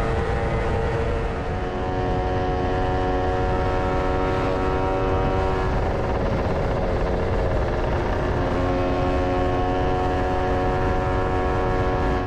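Lambretta scooter's two-stroke single-cylinder engine running at a steady cruising speed, under a heavy rush of riding wind. The engine note shifts slightly about a second and a half in and again after about eight seconds.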